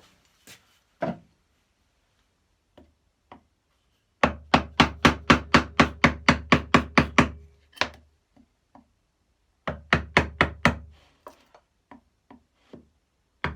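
Mallet tapping a wood chisel into pine, chopping down along a knife wall: two quick runs of sharp wooden knocks, about four to five a second, with a few single taps between.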